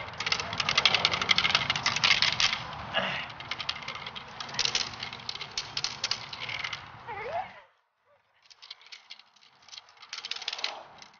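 Rapid rattling clatter of a trainer's agitation stick being shaken to agitate a puppy during bite work. It cuts out abruptly about seven and a half seconds in and comes back more quietly a second later.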